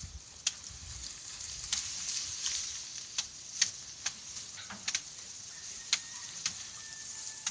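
Faint outdoor ambience: a steady high hiss with scattered sharp crackles and snaps, about one every second or so, and a faint thin steady tone near the end.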